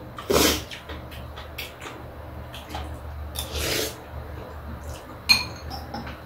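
Metal spoons clinking and scraping against ceramic soup bowls, with a louder knock just after the start and a sharp, ringing clink about five seconds in.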